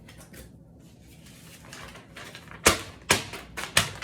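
Cardboard and foam monitor packaging being handled: soft rustling, then about four sharp knocks in quick succession over the last second and a half.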